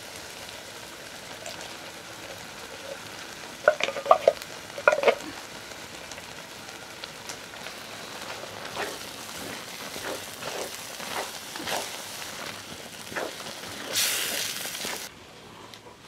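Chili sizzling in a cast-iron Dutch oven while a wooden spoon stirs it, knocking and scraping against the pot, with a cluster of louder knocks about four to five seconds in. A short, louder hiss comes near the end and stops suddenly.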